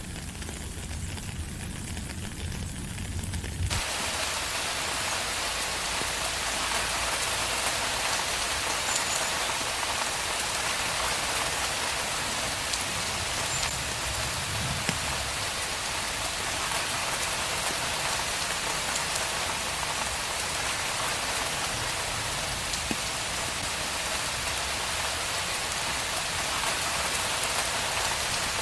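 Steady rain: a dense, even hiss of drops. For the first few seconds it is duller, with more low rumble; then the full, bright hiss comes back and holds.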